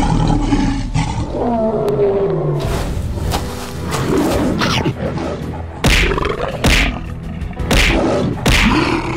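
A big cat's roar and snarls, used as the voice of an animated creature, over dramatic background music. The music has several loud hits in the second half.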